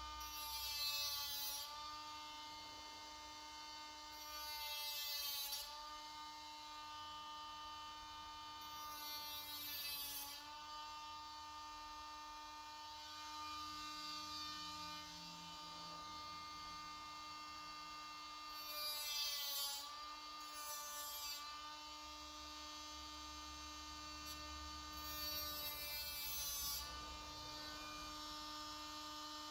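Small cordless power tool with a round sanding disc running steadily on a plastic grille, with a whine. About five times the disc is pressed onto the plastic: the motor bogs down briefly in pitch and a hiss of sanding is heard, then it picks back up.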